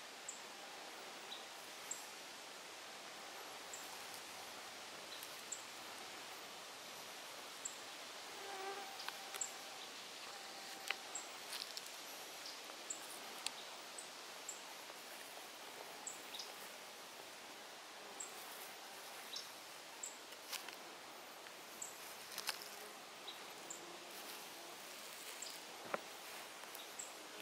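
Faint outdoor woodland ambience: insects buzzing, with short, very high thin bird calls repeating every couple of seconds and scattered brief chips. The calls are American robins' alarm calls at a great gray owl in their territory.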